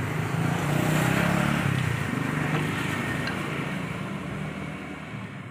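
A motor vehicle's engine running as it passes close by, loudest about a second in and then fading away.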